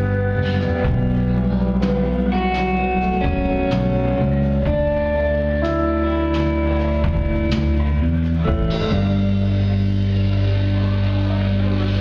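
Live rock band playing an instrumental passage: electric bass, guitar and keyboard holding sustained chords, moving to a new chord about nine seconds in.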